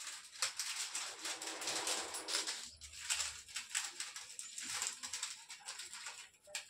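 Irregular rustling and crinkling with small clicks, from hands handling offering items, paper or plastic wrapping among them, at the sewing machine.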